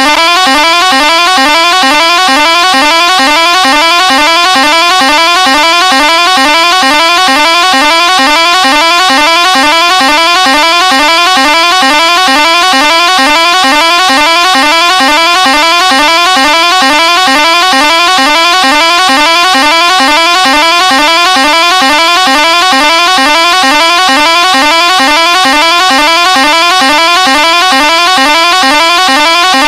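Musical pressure horn of the kind fitted to buses, sounding without a break: a quick rising note repeated over and over at an even pace, loud and steady throughout.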